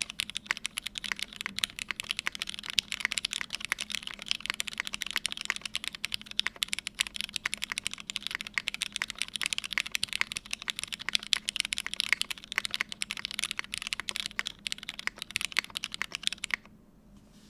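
Continuous rapid typing on a Midway60 mechanical keyboard with lubed Cherry MX Hyperglide black linear switches, a half aluminium plate and GMK keycaps: many keystrokes a second. The typing stops about a second before the end.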